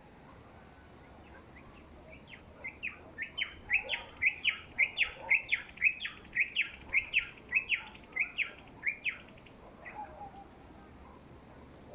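A bird calling a rapid series of short, clear notes, each sweeping downward in pitch, about three a second. The series starts softly about two seconds in, grows loud, then stops after about seven seconds.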